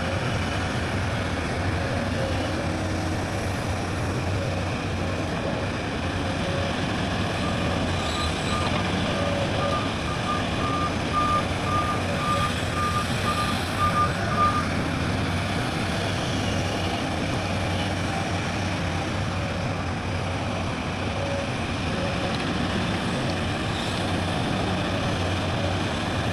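Diesel engines of an excavator and dump truck running steadily, with a reversing alarm beeping at about two beeps a second for roughly seven seconds in the middle.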